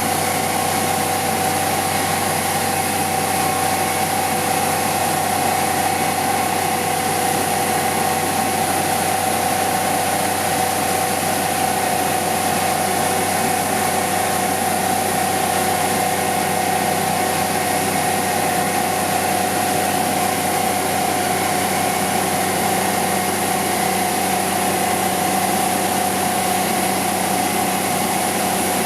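Construction machinery running steadily: a constant, unchanging hum with a few steady tones.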